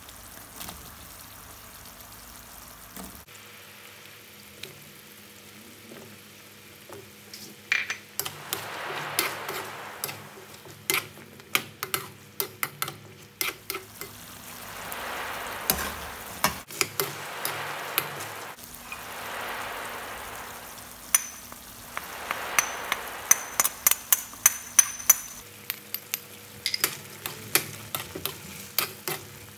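Chicken, carrots and potatoes simmering in coconut milk in a metal pan, at first with a low, steady bubbling hiss. From about eight seconds in, a ladle stirs the curry, clinking and knocking sharply against the pan while the sizzling swells and fades.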